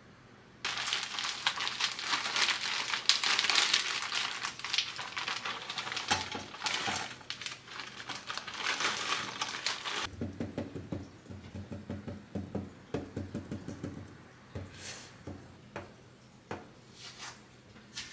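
A zip-top plastic bag of crushed Oreo crumbs and melted butter crinkling loudly as it is squeezed and kneaded by hand to mix them. About ten seconds in this gives way to a metal spoon pressing and scraping the buttery crumbs into a round cake pan in quick repeated strokes, which thin out into a few light taps near the end.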